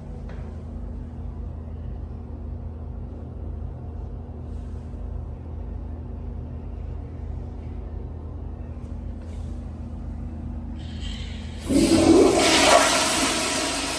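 A steady low hum, then near the end a toilet flushes: a sudden loud rush of water that peaks and begins to fade.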